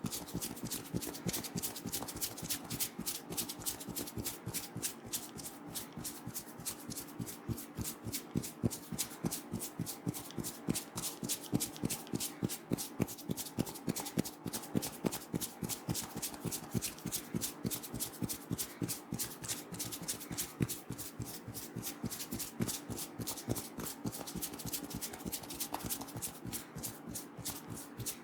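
Hands striking and rubbing a person's head in a massage: quick, even strokes, about four or five a second.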